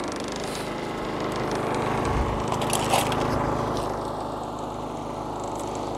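Generac IQ3500 inverter generator's 212cc OHV engine running steadily just after its first start, its dial just moved from choke to run. A few light clicks come about two and a half to three seconds in.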